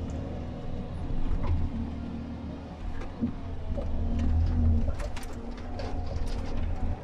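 Komatsu 931.1 harvester's diesel engine and hydraulics heard from inside the cab: the engine eases off at the start and pulls up again about four seconds in. A few sharp clicks and knocks come near the end.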